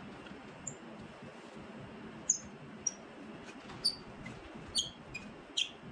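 A series of about six short, high-pitched squeaks with quick pitch slides, from a hex driver turning a bolt out of a paramotor's propeller hub. The first squeak is the loudest.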